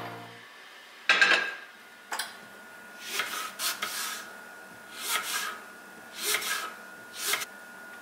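Kitchen knife cutting through an apple and a flaky croissant on a cutting board: short rasping cuts, a cluster of them about three seconds in, then single strokes roughly a second apart. A louder knock comes about a second in.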